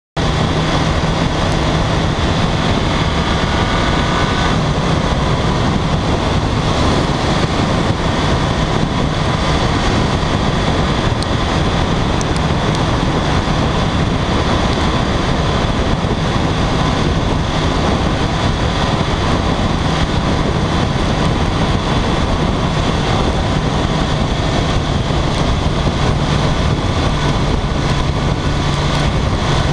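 Wind rushing over the camera and road noise from a BMW K1300R motorcycle cruising at highway speed on a wet road, its inline-four engine holding a steady drone underneath.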